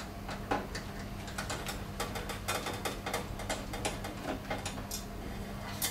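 Screwdriver working the screws out of a photocopier's sheet-metal main board bracket: irregular small clicks and ticks of metal on metal, over a faint steady hum.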